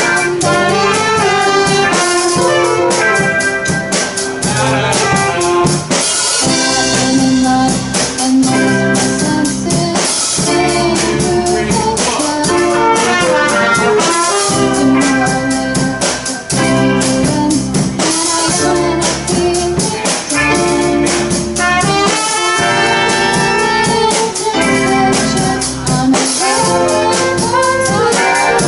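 Student rock band playing live: drum kit keeping a steady beat under sustained horn lines, with bass and guitar.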